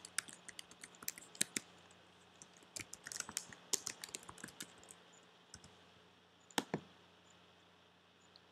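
Typing on a computer keyboard in two quick runs of keystrokes, then two louder clicks about six and a half seconds in.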